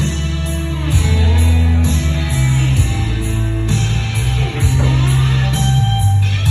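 Instrumental break of a band playing a rock song: guitars over a steady bass line, with no singing.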